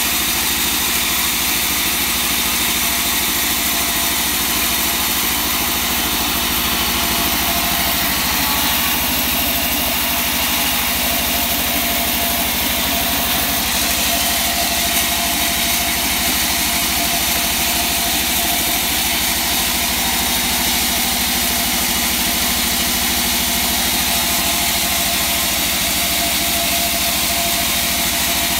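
Large vertical band saw running steadily as a plank of hard wangkal wood is fed through the blade, a continuous machine drone that barely changes.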